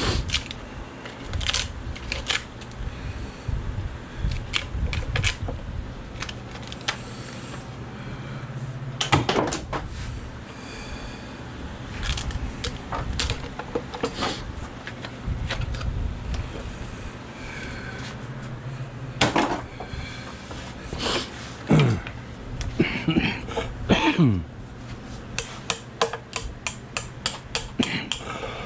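Waste wood between saw kerfs in a wooden post being broken out and chiseled away to form a notch: irregular sharp knocks and cracks, with a few squeaky creaks of wood giving way and a quick run of light taps near the end.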